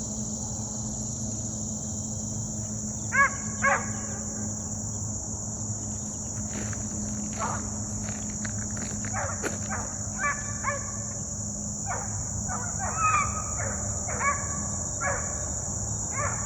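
Hounds baying and barking in short, repeated calls: twice about three seconds in, then more often over the last six seconds. Under them runs the steady high drone of insects and a low steady hum.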